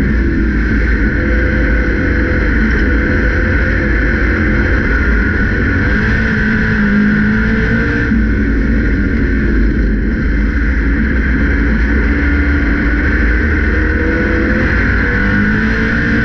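Grand National stock car's engine running hard at racing speed, heard from inside the cockpit: a loud, continuous drone whose pitch sags and climbs again a couple of times, over heavy wind and track noise.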